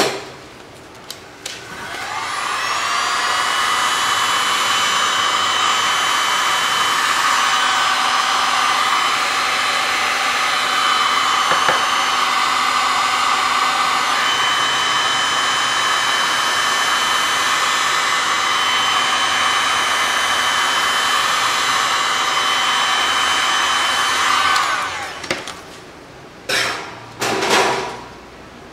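Electric heat gun switched on about two seconds in, its fan spinning up to a steady whir with a faint whine over it. It runs for about twenty seconds and then winds down, followed near the end by a few short scuffing sounds.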